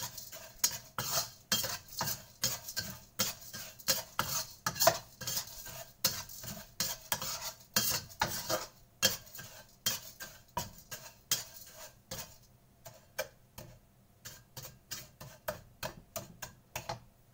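Metal wok spatula scraping and stirring sugar and oil around a wok, melting the sugar over a low flame. It is a quick run of scrapes and clinks, about two to three a second, that grows fainter in the last few seconds.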